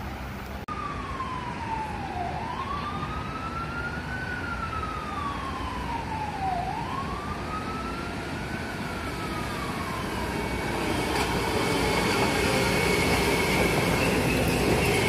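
An emergency vehicle siren wails, rising and falling slowly in pitch about every four seconds, over a steady hiss of rain. From about eleven seconds in, a Metro-North M7 electric train approaches and the sound grows louder, with a high steady whine.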